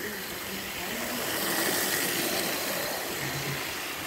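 Model train running along the track: a steady hissing running noise that grows a little louder in the middle.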